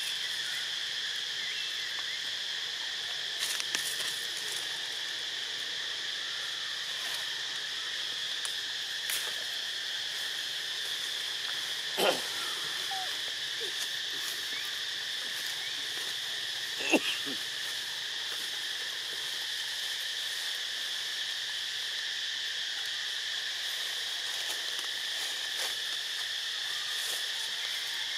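Steady high-pitched drone of an insect chorus (crickets or cicadas) that does not change in pitch. Two short, sharp sounds stand out over it, one about halfway through and another about five seconds later.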